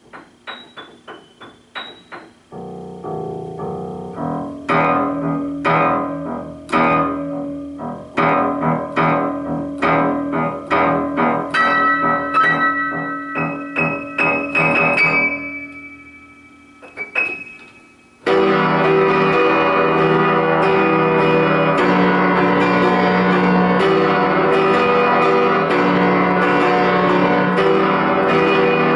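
Piano-type keyboard music: single struck notes and chords ring and fade for about sixteen seconds. After a short lull, a dense, steady-level passage starts abruptly.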